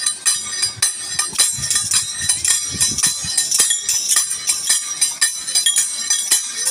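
Kamsale, hand-held bronze cymbals, clashed by several dancers in a fast, steady rhythm, a sharp metallic clash on every beat.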